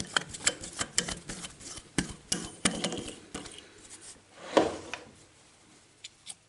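Hand tap cutting a thread into a hole in a metal part held in a lathe chuck, turned by hand through a drill chuck: a run of irregular clicks and ticks, several a second, then one louder knock about four and a half seconds in.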